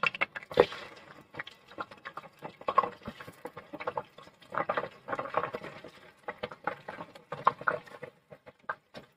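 Raw bone-in chicken pieces frying in about two cups of hot oil in a pot, crackling and spattering with many irregular sharp pops as more pieces go into the oil.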